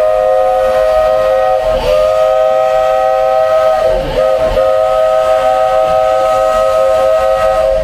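Steam locomotive whistle on a vintage narrow-gauge Walt Disney World Railroad engine, blowing three long blasts that sound several notes at once. The last blast is the longest.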